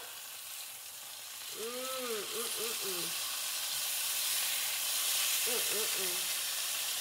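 Steaks sizzling in a frying pan with onions as they are turned over with tongs. The sizzle grows louder from about two seconds in.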